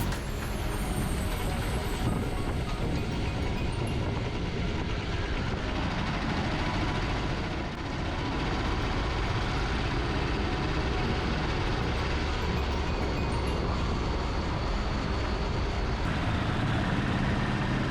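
Mumbai Metro Line 2A train running between stations: a steady rumble of wheels and running noise with no clear breaks.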